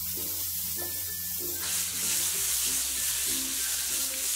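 Fresh curry leaves sizzling in hot oil with mustard seeds and dried red chillies in a wok: the tempering step of poha, with the hiss spreading and growing fuller about a second and a half in as a spoon stirs. Soft background music runs underneath.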